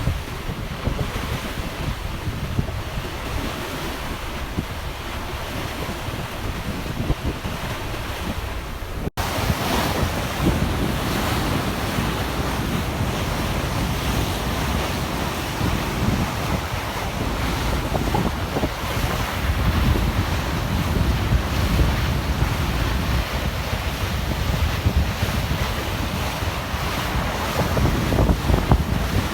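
Wind buffeting the microphone and water rushing past a moving ferry, a steady noisy rush. A sudden break about nine seconds in, after which the rush is louder and brighter.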